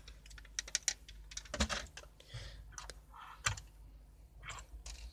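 Irregular light clicks and clatter of plastic model railway track pieces being picked up and moved by hand, with small taps as model train cars are handled and set down on a hard tabletop.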